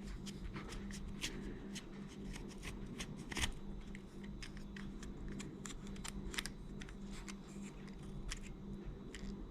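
Irregular small clicks and light rattles of plastic parts being handled: the opened casing and little plastic gears of a failed quartz clock movement, over a low steady hum.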